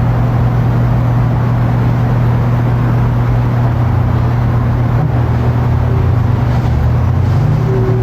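A steady low engine drone with a noisy rush over it, like a motor vehicle running.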